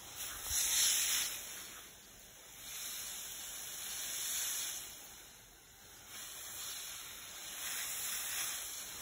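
Garden hose spraying water onto soil and plants: a steady hiss that swells and fades several times as the stream is moved about.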